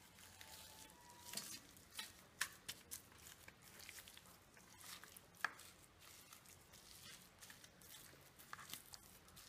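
Near silence, with faint scattered clicks and light taps at irregular intervals, a little louder about two and a half and five and a half seconds in.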